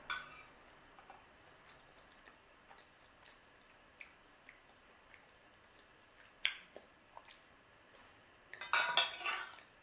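Metal fork clinking and scraping against a ceramic plate as food is picked up: a few sharp separate clinks, then a louder burst of clatter near the end.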